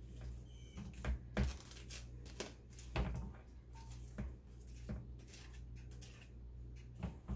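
Plastic salad spinner parts knocking and clattering as the slotted inner basket is handled and taken apart, a string of irregular clacks, the loudest about a second and a half in and again about three seconds in.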